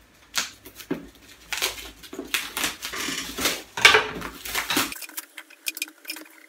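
Cardboard packaging being opened by hand: scraping, rubbing and knocks as a seal is cut and an outer cardboard sleeve is slid off a product box, dying down to a few faint clicks about five seconds in.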